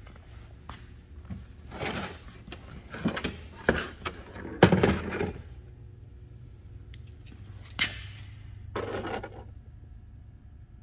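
A few scrapes and knocks as a flat-screen TV is handled and turned around on a steel workbench, the loudest about halfway through, over a steady low hum.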